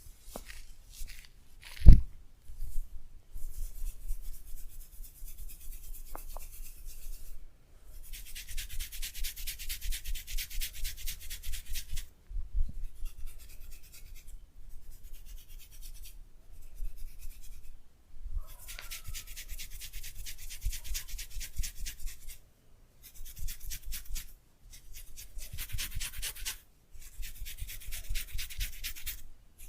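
Hands rubbing briskly through hair and over the scalp in a head massage, in stretches of a few seconds of fast, scratchy strokes with short pauses between them. A single hard thump about two seconds in.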